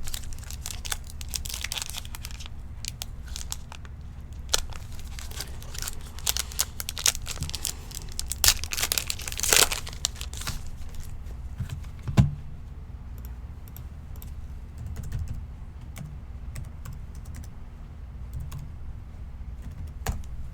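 Trading-card pack wrappers crinkling and tearing, with scattered light clicks and taps of cards being handled, and a louder rustle about nine seconds in.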